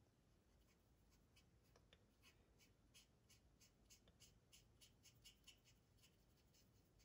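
Very faint scratchy strokes of a small paintbrush scrubbing paint into the plastic surface of a scale model, a few short strokes a second, a little busier after about two seconds.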